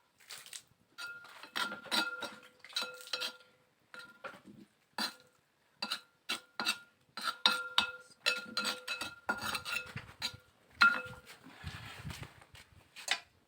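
A metal spoon repeatedly clinking and scraping against a metal dish, in irregular strokes that each leave a short ringing tone.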